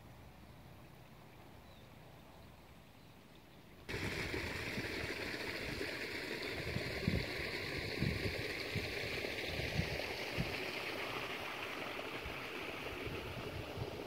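Wind on the microphone: a steady rushing with short low buffeting thumps, cutting in suddenly about four seconds in after a faint, quiet start.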